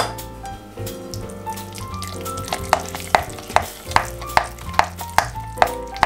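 Wet grated-zucchini and egg batter being stirred with a spatula in a glass bowl: a quick run of wet mixing strokes, about three a second, in the second half.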